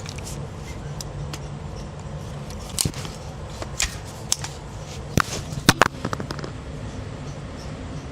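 Sharp cracks and clicks, about eight of them scattered from about three to six and a half seconds in, the loudest pair near six seconds, over a steady low hum.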